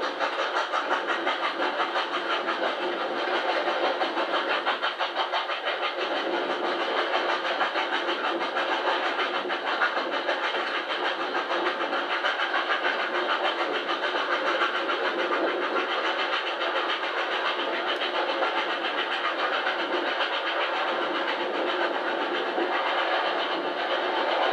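Steam trains running at speed side by side: an R class steam locomotive working hard alongside, its fast exhaust beat mixed with the clatter of carriage wheels on rail. The sound is thin and lacks bass, as from an old VHS tape played back through a TV speaker and re-recorded.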